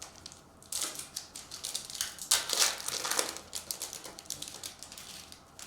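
Trading cards and their wrapping being handled: a run of rustles, crinkles and quick card flicks, busiest from about one to three seconds in, then tapering off.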